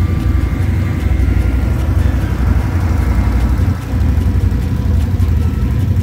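Side-by-side UTV engine running steadily while riding along a trail, heard from aboard as a loud low rumble, dipping briefly a little before four seconds in.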